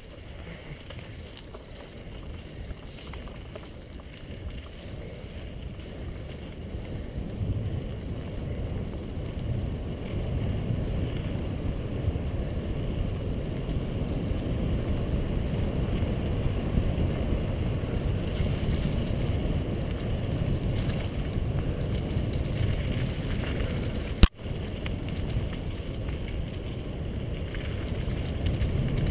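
Mountain bike rolling fast down a dirt trail: tyre and trail rumble with wind on the microphone, growing louder as speed builds over the first ten seconds, then steady. One sharp click about 24 seconds in.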